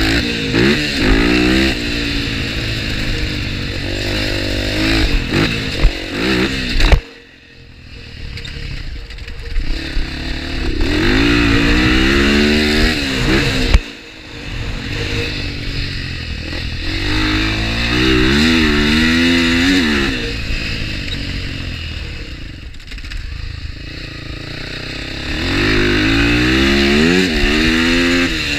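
A TXR250X dirt bike's engine revving hard and easing off over and over as it is ridden through a motocross circuit, heard from a camera mounted on the bike, with rattling from the chassis. Twice, about seven and fourteen seconds in, a sharp loud knock is followed by the engine sound dropping away for a moment.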